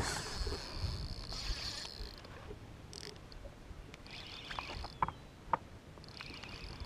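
Spinning reel being cranked fast to retrieve a lure, giving a high whir in three spurts, with a couple of light clicks in between.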